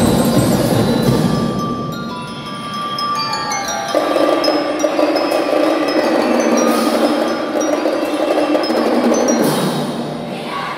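Drum and lyre corps playing: full ensemble at first, then the bell lyres sound a falling run of bright bell notes and go on with a melody over a steady lower accompaniment. A crowd starts cheering near the end.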